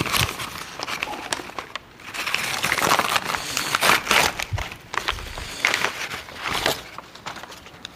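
Paper wrapping being crumpled and pulled off a taped-up gift by hand, a run of irregular crinkles.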